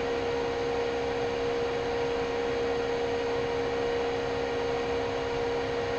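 Steady machine hum at one constant pitch, over an even background hiss.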